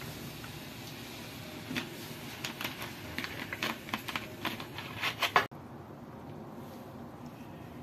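Fresh soda fizzing and crackling over ice in a glass: a growing run of sharp little pops and clicks that stops suddenly about five and a half seconds in.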